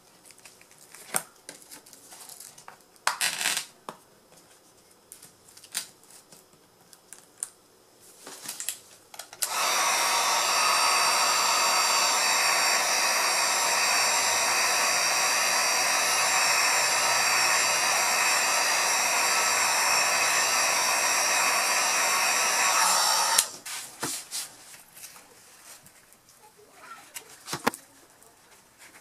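Heat gun blowing steadily for about fourteen seconds, switched on about a third of the way in and cut off abruptly, warming the edges of a tablet's cracked glass to soften the adhesive so it can be pried off. Light taps and clicks of handling come before and after it.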